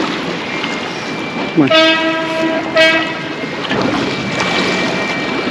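A boat horn sounding one blast of about a second, sliding quickly up to its note at the start, then a short second toot.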